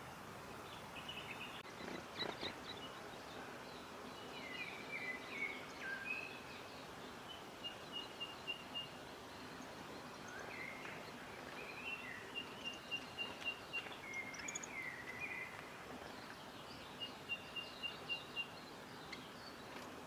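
Bird calls in forest: three runs of quick, evenly spaced high pips, each lasting about a second, with scattered chirps and twitters between them, over a steady background hiss.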